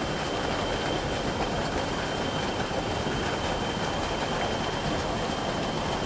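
Steady rush of shallow, fast-flowing stream water over rocks, with a jet of water pouring from a pipe and splashing into the channel.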